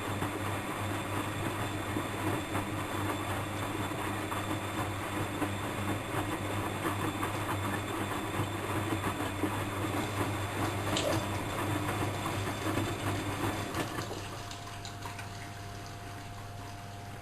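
Bosch WFM3010 front-loading washing machine tumbling a wash load: the drum motor hums steadily over water and laundry sloshing in the drum. About fourteen seconds in the motor stops and the sound dies down.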